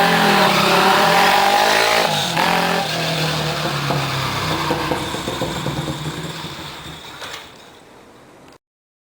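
Honda Monkey's single-cylinder four-stroke engine through an aftermarket exhaust: the revs fall back after a blip, rise again briefly about two seconds in, then settle to a steady idle. The sound fades over the last few seconds and cuts off about 8.5 seconds in.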